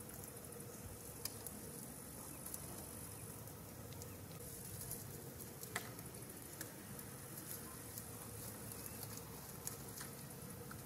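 Faint outdoor ambience: a steady high-pitched insect drone, with a few scattered sharp clicks, the loudest about six seconds in.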